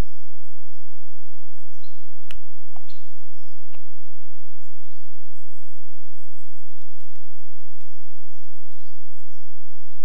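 Small birds calling: repeated thin, high chirps that slide downward in pitch, with a single sharp click a little over two seconds in.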